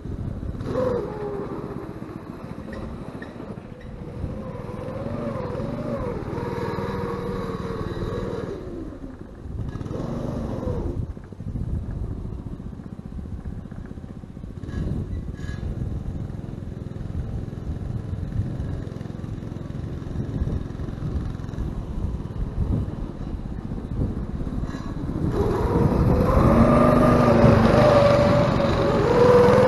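Go-kart's 3.5 hp Briggs & Stratton flathead single-cylinder engine running under way, its pitch rising and falling with the throttle. It is fainter in the middle and grows much louder near the end as the kart comes close.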